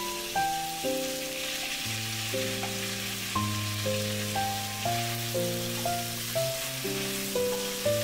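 Background music, a melody of held notes changing about twice a second, over a light sizzle of diced pork meeting hot oil in a wok.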